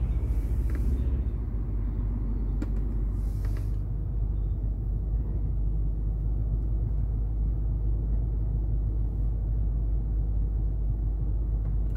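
Toyota Land Cruiser 200 series V8 engine running in low range (L4) with the gearbox in drive, a steady low rumble. Crawl control is being switched on. Two short hisses and a click come in the first few seconds.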